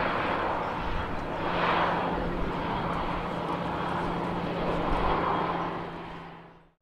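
Jet airliner's engines running on the runway as it moves past and away: a steady, loud rush of engine noise over a constant low hum, swelling and easing a few times, then fading out quickly near the end.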